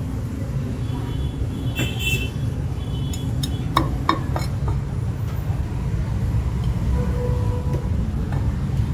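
Steady traffic rumble from the street, with a brief high tone about two seconds in. A few sharp knocks about four seconds in come from a butcher's cleaver chopping through mutton ribs on a wooden block.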